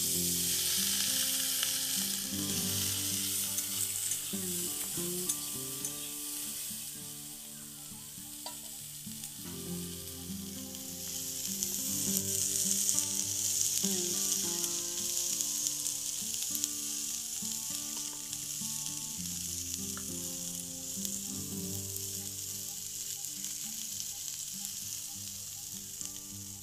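Chopped flat beans sizzle loudly as they hit hot oil in a black wok, then keep frying with a steady sizzle while being stirred with a metal spatula; the sizzle swells again about twelve seconds in. Soft background music plays underneath.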